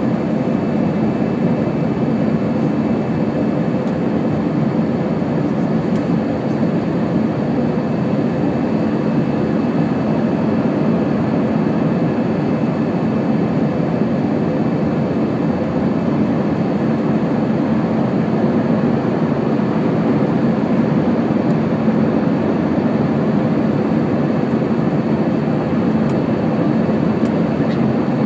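Steady jet engine and airflow noise heard inside the cabin of an Airbus A321-200 airliner, an even rush with a low hum running through it.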